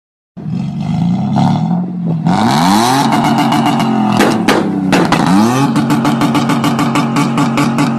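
Toyota Land Cruiser pickup accelerating hard, its engine and exhaust climbing in pitch twice as it pulls through the gears, then holding a steady high note.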